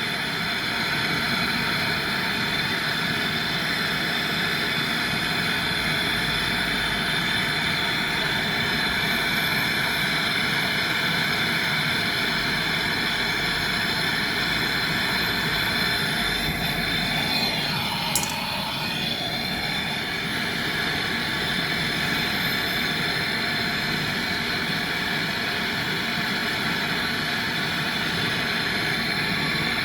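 A steady mechanical hum and hiss, even in level throughout, with a single sharp click about 18 seconds in.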